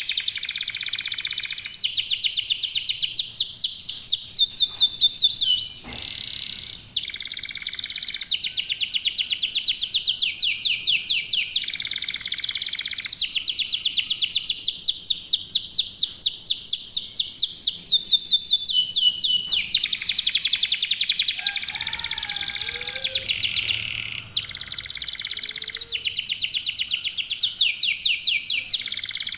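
Domestic canaries singing in long, fast rolling trills of rapidly repeated high notes, phrase after phrase with hardly a pause, broken briefly about six seconds in.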